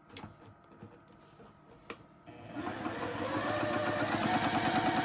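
Juki TL-2010Q straight-stitch sewing machine starting up about two seconds in and sewing through fabric at its middle speed setting, about 750 stitches per minute: a fast, even rhythm of needle strokes with a motor whine that rises briefly, then holds steady. Before it starts, a few light clicks.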